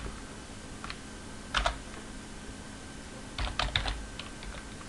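Keystrokes on a computer keyboard: a few separate taps, then a quick run of several keys about three and a half seconds in.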